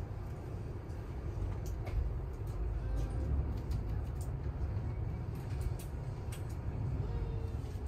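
Low, steady rumble inside an SNCF passenger train carriage, with faint scattered clicks.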